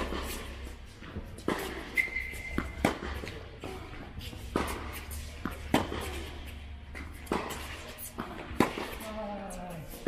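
Tennis balls being struck with racquets and bouncing on the court during play: a string of sharp knocks at uneven intervals, about ten in all.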